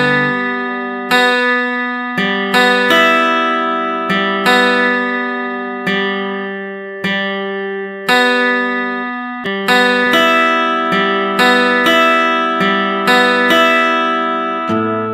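Background music of acoustic guitar, chords plucked or strummed about once a second, each left to ring out.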